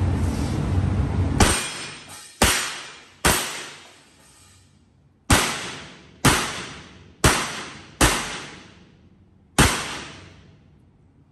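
Revolver shots fired one at a time, eight in all at an uneven pace with a pause of about two seconds after the third, each followed by a long echoing decay off the indoor range.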